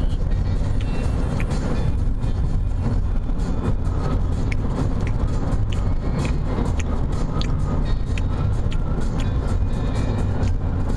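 Steady road and engine noise heard inside the cabin of a car moving at highway speed, with short clicks scattered through.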